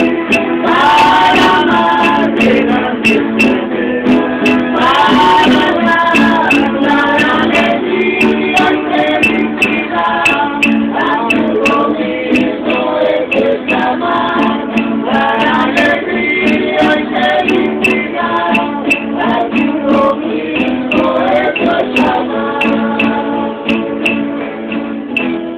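A group of voices singing a Spanish-language hymn to several acoustic guitars strumming a steady rhythm.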